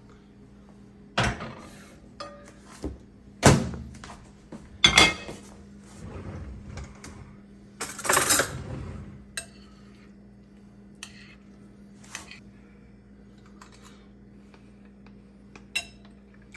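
Kitchen clatter of pots, dishes and utensils knocking and clinking. There are several sharp knocks in the first half, a longer, noisier clatter about eight seconds in, and a few lighter clicks after it, over a faint steady hum.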